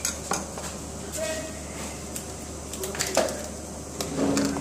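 Brief, indistinct voice sounds and a few light clicks of kitchen handling over a steady low hum.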